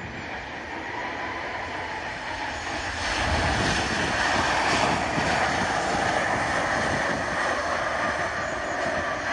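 Boeing 767-300ER's jet engines rushing just after touchdown, the noise growing louder about three seconds in as the airliner rolls out past close by. Wind rumbles on the microphone underneath.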